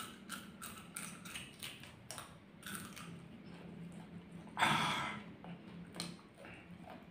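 Close-up chewing of a raw green bird's eye chili (cabai rawit hijau), with quick crisp crunching clicks at first that thin out. About four and a half seconds in there is one louder mouth noise.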